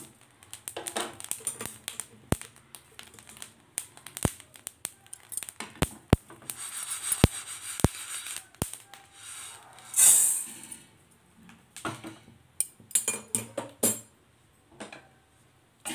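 A wooden spatula scrapes and knocks through dry-roasted fenugreek seeds in a nonstick pan, with sharp clicks scattered throughout. About ten seconds in, the roasted seeds are tipped out into a steel pan with a loud, brief rushing rattle.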